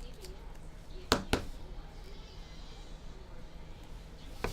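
Two sharp taps a quarter second apart about a second in, and another near the end, from trading cards being handled, over a steady low hum and faint background voices.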